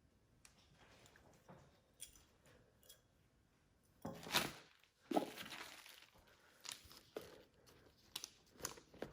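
Handling noise from a handbag and its strap: scattered light clicks and rustles, with two louder rustling bursts about four and five seconds in.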